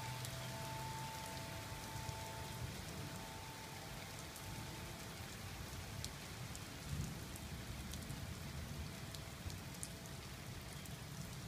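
A steady rain shower: an even hiss with many scattered drop ticks over a low rumble. Two faint steady tones are heard in the first few seconds and fade away.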